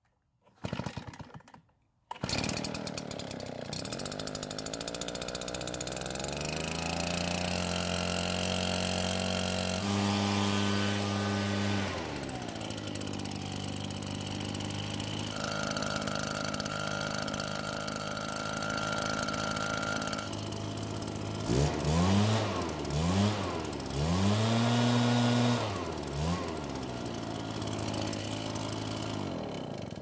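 RedMax EBZ8500 backpack blower's two-stroke engine starting up about two seconds in after a short first burst, then running with its pitch climbing as it settles into idle. It is revved up and down several times and then shuts off near the end. It runs again on a newly replaced flywheel, the part whose replacement cured its no-start.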